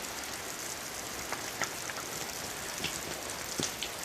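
Steady rush of falling water with scattered drips and patters of drops over it.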